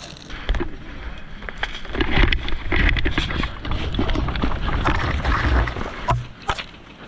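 Low wind rumble on the microphone, with scattered clicks, knocks and rustles from a player moving with gear. It drops away near the end.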